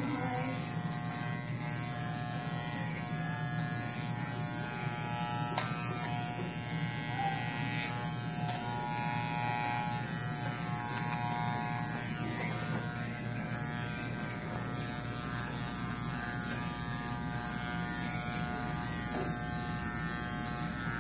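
Corded electric hair clippers buzzing steadily as they shave hair close to the scalp.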